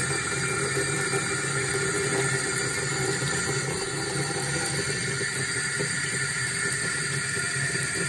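Water running steadily from a waterfall faucet's wide flat spout, pouring as a sheet into a bathroom sink basin.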